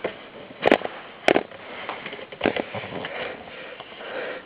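Three sharp, brief clicks or knocks of handling, a little over a second apart, with a faint background between them.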